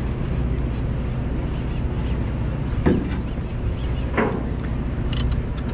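Steady low drone of a party fishing boat's engine, with two brief knocks about three and four seconds in.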